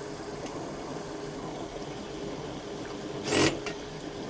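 GE portable dishwasher running with a steady motor hum and water noise. A short, sharp noise breaks in about three seconds in.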